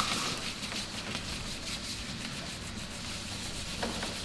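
Alloy wheel rims being sanded by hand with abrasive paper: a scratchy rubbing made of repeated strokes, with a short tap near the end.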